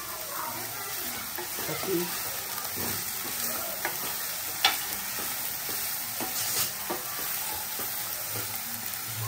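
Shredded cabbage, carrot and capsicum sizzling in oil in a non-stick kadai while a plastic spatula stirs and scrapes them, a steady frying hiss. One sharp click stands out about halfway through.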